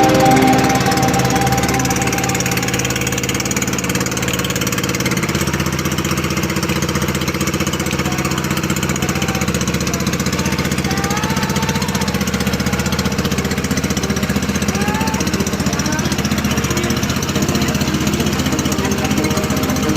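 An engine running steadily, its note shifting slightly about five seconds in.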